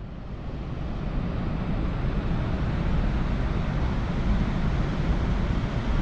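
Wind on the microphone over ocean surf, a steady rushing noise heaviest in the low end that grows louder over the first couple of seconds.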